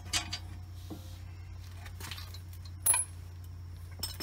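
Light metallic clicks and clinks of a brake caliper bracket's bolt and tools being handled, with one sharp, ringing clink about three seconds in. A steady low hum runs underneath.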